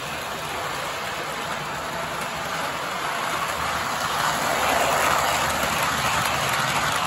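Model subway train running on three-rail track: a steady whir of wheels and motor that grows louder about four seconds in as the cars pass close by.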